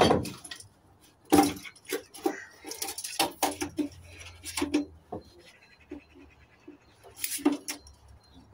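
Irregular clanks, clicks and rattles of metal and plastic parts being pulled and worked loose inside a stripped gas boiler, with the loudest knocks at the start, about a second and a half in, and near the end.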